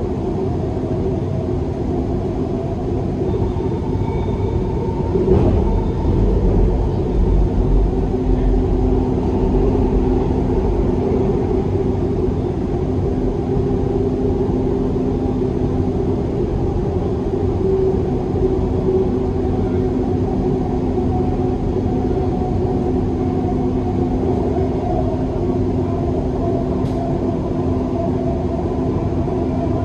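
Dubai Metro Green Line train running between stations, heard from inside the carriage: a steady rumble with a constant low hum, a single knock about five seconds in, and the low rumble swelling a little for a few seconds after it.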